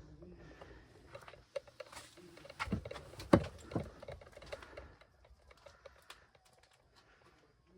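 Irregular light clicks, taps and rustling from something being handled, the sharpest knock about three and a half seconds in, thinning out after about five seconds.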